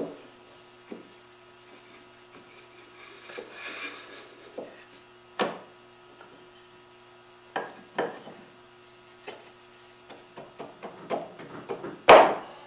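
Wooden door-frame stiles and rails and a raised panel knocked and slid together by hand in a dry fit: scattered light wooden clicks and knocks, a brief rubbing about three to four seconds in, a quick run of taps near the end and a louder knock just before it ends.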